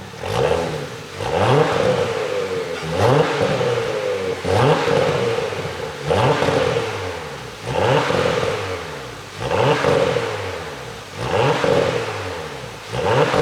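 Porsche Panamera 4's twin-turbo V6 blipped about eight times at a steady pace, each rev rising sharply and falling back, with exhaust pops and crackles on the overrun from an ECU tune.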